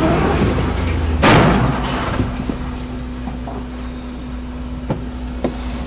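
A loud crash about a second in, from the collision between a train and a semi truck at a railway level crossing. It is followed by the steady engine and road rumble of the car, heard inside its cabin, with two short knocks near the end.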